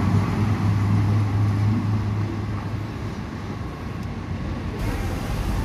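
Vintage railcar's engine running with a steady low hum and the rumble of its wheels on the track, fading as the train draws away. About five seconds in, a broader low rumble abruptly takes over.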